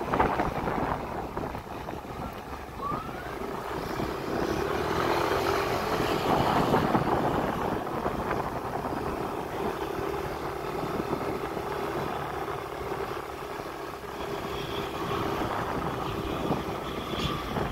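Motorcycle engine running as the bike rides along a road, with a steady drone.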